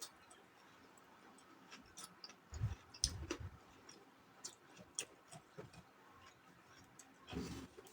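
Faint, scattered clicks and a few soft low thumps from someone eating: mouth, chewing and utensil sounds.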